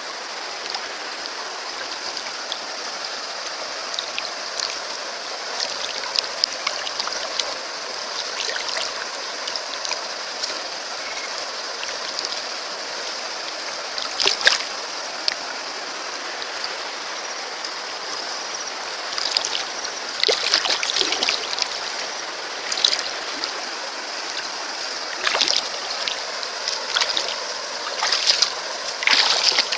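Water running steadily, with occasional splashes: one about halfway through and several more in the second half.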